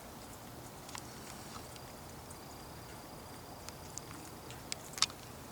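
Faint, steady rushing of a Rheem gas furnace's inducer motor pushing exhaust out through the vent while the furnace is firing, with a few small light clicks, the sharpest about five seconds in.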